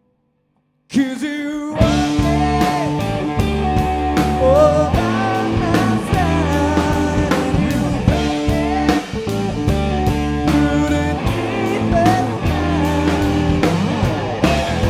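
Blues-rock power trio of electric guitar, bass guitar and drum kit kicking back in after about a second of silence, with a steady drum beat under a lead guitar line that bends and wavers in pitch.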